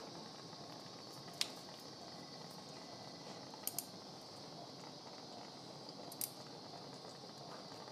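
Steel surgical instruments clicking as they are handled: a sharp click about a second and a half in, a quick double click just before four seconds, and another click a little after six seconds, over a steady background hiss.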